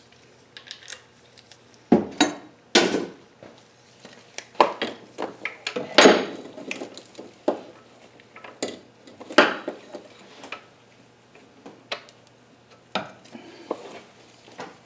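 Irregular metallic clinks and knocks of a wrench being fitted to and worked on a stubborn engine mount bolt, the loudest knock about six seconds in.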